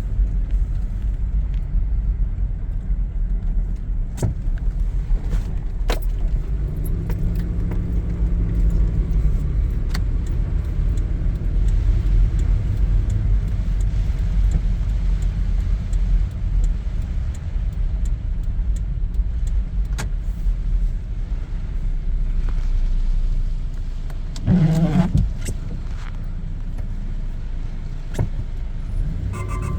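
2001 Toyota 4Runner running, a steady low rumble with scattered clicks; this is the vehicle whose weird strumming noise is in question. About 25 seconds in, a short pitched warble rises over the rumble.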